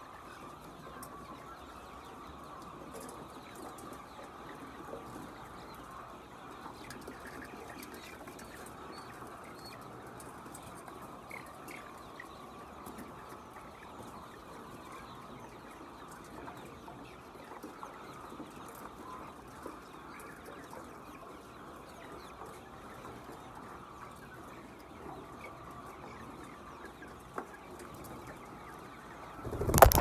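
A large flock of chickens in a shed, many birds clucking and calling at once in a steady din. A loud burst of noise comes right at the end.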